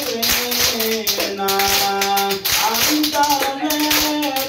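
ISHARI hadrah: a group of men singing a sholawat in unison in long held, stepping notes, over terbang frame drums and rhythmic hand claps.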